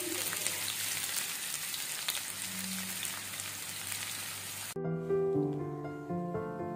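Sliced onions sizzling in hot oil in a kadai, a steady hiss with fine crackles. About two-thirds of the way in, the sizzle cuts off abruptly and background music takes over.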